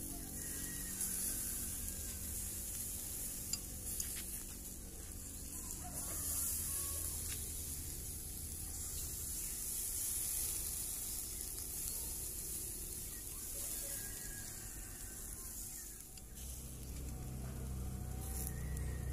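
Skewered chicken sizzling on a wire grill over charcoal: a steady hiss with a few faint crackles.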